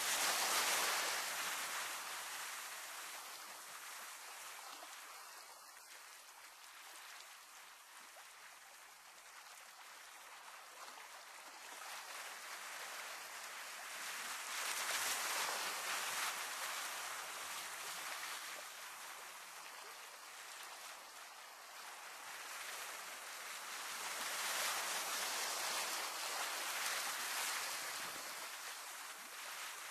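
Sea surf washing against a rocky shore: an even hiss of water that slowly swells and fades, loudest at the start, about halfway through and again near the end.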